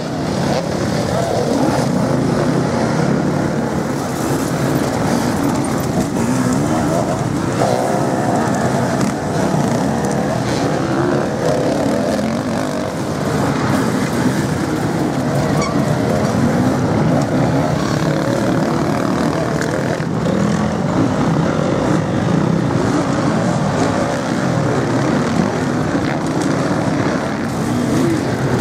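Enduro dirt bike engines revving hard, the pitch rising and falling as the riders work the throttle on a dirt hill section.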